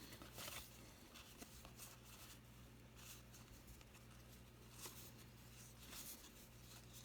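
Near silence: room tone with a low steady hum and a few faint, brief rustles of trading cards and pack wrappers being handled.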